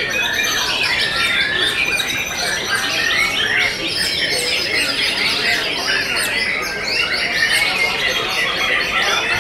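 White-rumped shama singing in its cage, its song mixed into a dense, unbroken chorus of many other songbirds' chirps, trills and whistles.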